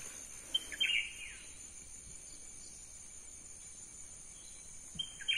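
Insects, crickets or cicadas, give a steady high-pitched drone, and a bird calls twice with short, sharp notes that drop in pitch: once about half a second in and again near the end.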